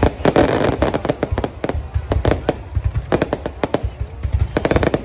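Fireworks display going off: many sharp bangs in quick, irregular succession, overlapping one another.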